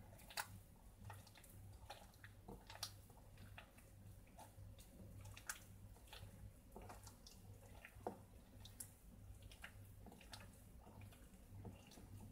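Faint, soft squishing and small clicks of hands kneading a sticky margarine, powdered sugar and egg dough in a glass bowl, at irregular moments.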